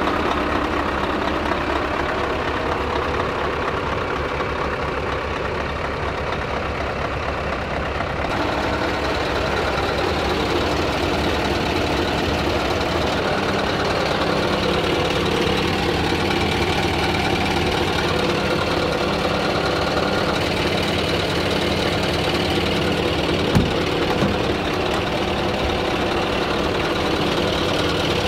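Scania R truck's diesel engine idling steadily. A single sharp knock sounds about two-thirds of the way through.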